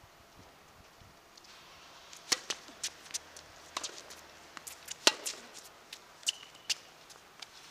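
Tennis ball struck by rackets and bouncing on a hard court in a rally: a string of sharp pops starting about two seconds in, the loudest about two and five seconds in, with a short high squeak near the end.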